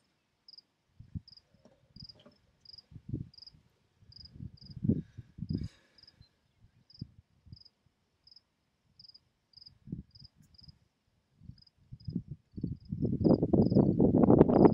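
A cricket chirping steadily at one high pitch, about one to two chirps a second. Scattered low thumps and rumbles run beneath it and turn into a loud, steady low rumble near the end.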